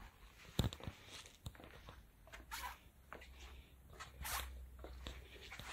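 Faint rustling and scattered soft clicks, like footsteps and clothing or camera handling as someone walks around, over a low hum that grows a little louder about four seconds in.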